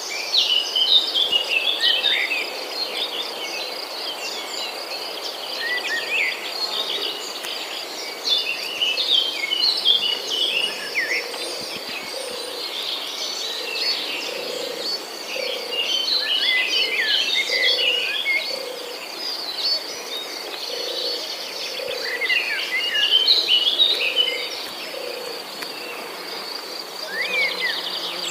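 Several birds chirping and singing in busy bursts over a steady, high, pulsing insect trill. In the second half a soft low call repeats about once a second.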